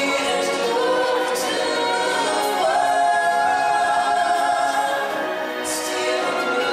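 Stage-show music: a choir of voices singing held notes over backing music, with one long sustained note through the middle.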